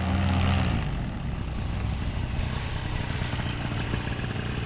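Paramotor engine and propeller running, louder for about the first second, then throttled back and running on steadily at a lower level as the pilot touches down.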